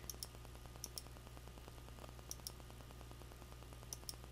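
Computer mouse clicks: four quick double ticks, each a button press and release, spaced about a second or more apart, over a steady low electrical hum.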